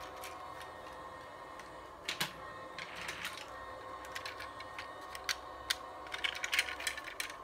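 Plastic HO scale model train cars clicking and tapping as they are handled and set down by hand: a scatter of sharp clicks, a pair about two seconds in and a quick flurry near the end.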